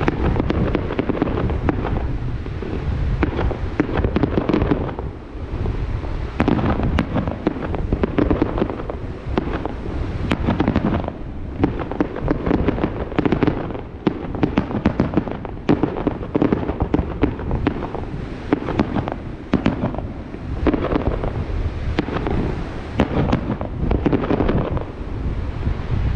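Fireworks display: aerial shells bursting one after another in a dense, unbroken barrage of booms and sharp cracks.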